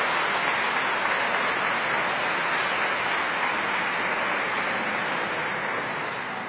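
Audience applauding: dense, even clapping that slowly dies down.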